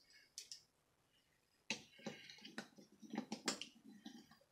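Plastic Lego bricks of a brick-built robot figure clicking and knocking as it is handled: one small click about half a second in, then a quick series of sharp clicks from about two seconds in.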